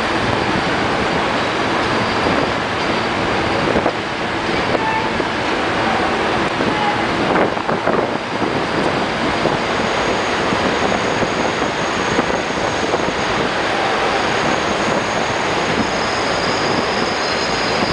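Vintage R1/R9 subway cars running on an elevated line, heard from inside: a steady rumble of wheels on the rails, with a short burst of clatter about eight seconds in and a faint high whine coming in near the end.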